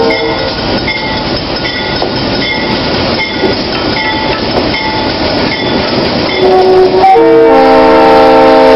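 Diesel freight locomotive pulling tank cars slowly past, engine and wheels rumbling, with a short ring repeating about every three-quarters of a second. A brief horn note comes just before seven seconds in, then a long loud blast on its multi-note chime horn from about seven and a half seconds.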